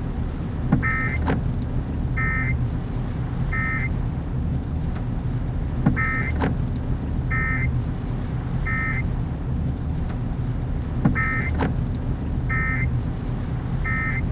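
Electronic beeping in sets of three, each set repeating about every five seconds, with a sharp knock just before each set, over a steady low rumble.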